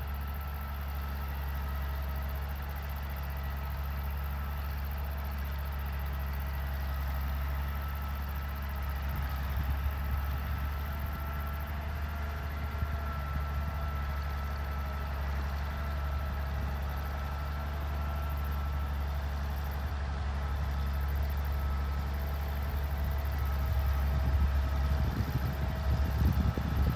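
Galion 118B motor grader's engine running steadily as the grader works its blade along a dirt pile, growing louder near the end as it comes closer.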